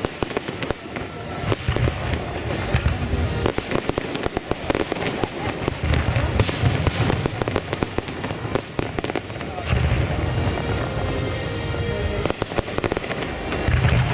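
Aerial fireworks shells bursting in a display: dense crackling from crackle stars, with heavy low booms about every four seconds.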